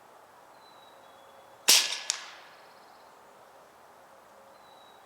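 A single shot from a Hatsan Blitz .22 PCP air rifle: one sharp crack about a second and a half in that dies away over half a second, with a second, smaller sharp click just under half a second after it.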